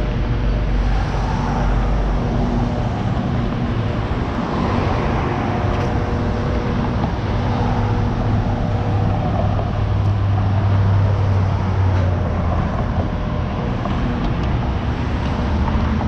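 Street traffic: cars passing one after another, their sound swelling and fading several times over a steady low hum.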